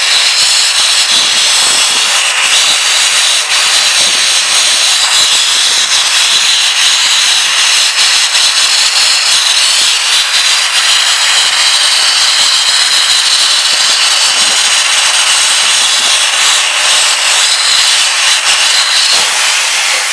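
Abrasive shot blaster: compressed air and grit jetting from the nozzle onto a curved body panel, a loud, steady, high hiss as the paint is stripped to bare metal.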